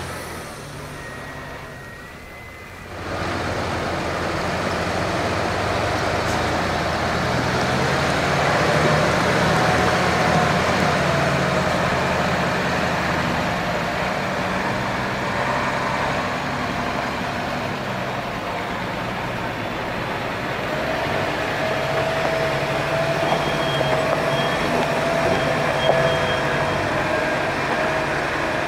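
Mercedes-Benz Unimog trucks' diesel engines running as they crawl over rough off-road ground. The sound is quieter for the first few seconds and comes up strongly about three seconds in, and a faint steady whine joins in the later part.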